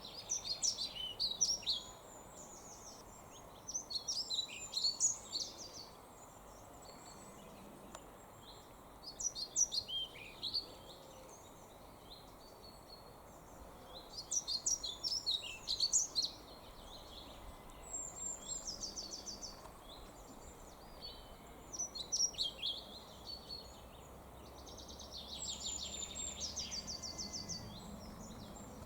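Male pied flycatcher singing: about seven short phrases of high, sweet notes, each around two seconds long and a few seconds apart, some carried on a rapid run of repeated notes.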